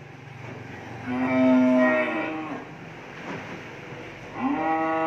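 Cattle mooing: two long calls, the first about a second in, the second starting near the end.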